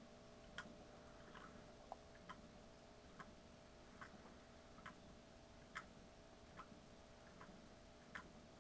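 Homemade PVC airlift pump in a coffee-can hydroponics system, fed by a small aquarium air pump, sputtering as it lifts nutrient solution: faint pops about once a second, a little irregular, like a coffee percolator, over a faint steady hum.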